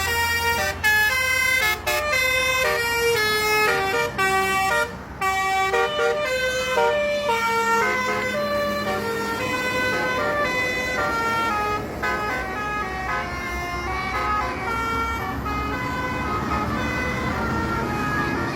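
A bus's telolet horn, a Basuri multi-trumpet musical air horn, playing a tune of stepped notes with several pitches sounding together. The notes come in quick runs at first, then turn into longer, more drawn-out notes that grow fainter near the end, over the low running of the bus.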